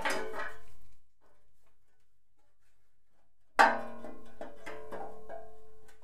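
Background music: a plucked-string note at the start that fades within a second, then another plucked chord about three and a half seconds in that rings on.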